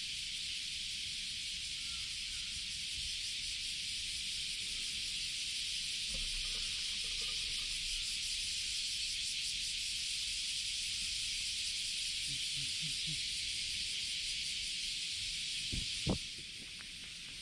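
Steady high-pitched hiss of outdoor ambience, ended by a sharp knock near the end, after which the hiss is fainter.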